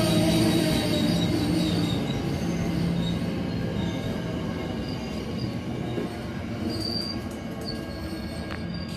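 Amtrak passenger train's stainless-steel cars rolling past with squealing wheels, the train arriving at the station. Steady squeal tones die away over the first few seconds, and a few short high squeals come about seven seconds in. The rolling sound fades as the last car moves off.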